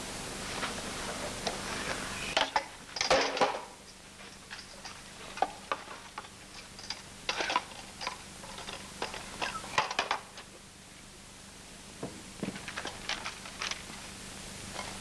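Handling noises: scattered short knocks and clicks of small hard objects being moved, with a few longer rustles, the biggest about three seconds in. Under them runs the steady hiss and low hum of an old sound-film track.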